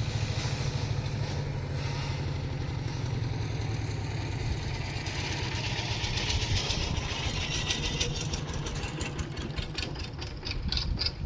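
A small engine running steadily with a fast low throb, and a hissing rattle rising over it in the last few seconds.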